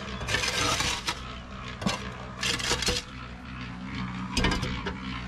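Concrete mixer running with a steady hum, with several short bursts of scraping as wet concrete is worked.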